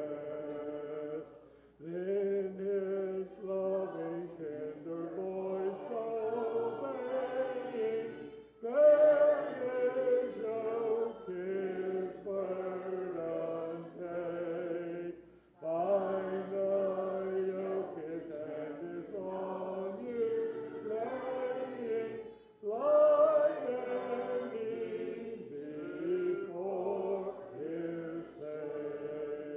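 Congregation singing a hymn a cappella, many voices together. The singing pauses briefly for a breath between lines, about every seven seconds.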